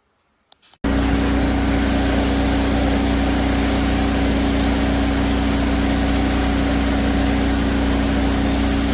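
Aspiron bagless canister vacuum cleaner running: a steady loud whooshing hum of motor and airflow that comes in suddenly about a second in and holds constant.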